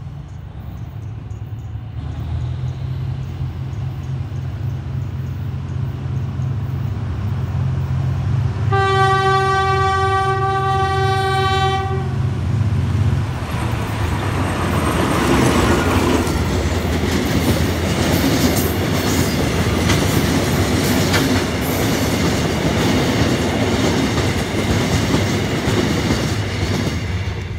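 GE diesel-electric locomotive hauling a stone freight train, its engine drone growing louder as it approaches. It sounds one long horn blast of about three seconds, some nine seconds in. After the locomotive passes, the loaded hopper wagons rumble by with the clickety-clack of wheels over rail joints.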